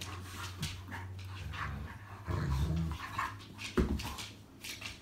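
A big yellow puppy and a small shaggy puppy play-fighting, growling low at each other, with one short, sharp louder sound near four seconds in.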